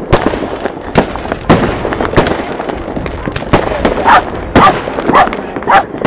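New Year's Eve fireworks going off: a rapid, irregular string of sharp bangs and cracks from aerial shells and rockets, at times several a second. In the second half there are also short pitched calls repeating about twice a second.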